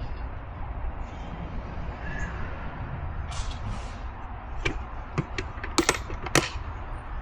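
A handful of sharp clicks and knocks in quick succession from wheel-changing work on a trailer, over a steady low rumble, with a short hiss about three seconds in.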